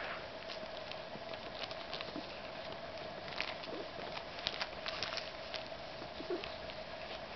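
Thin clear plastic bag crinkling in small, irregular rustles and clicks as a cat noses, licks and chews at it.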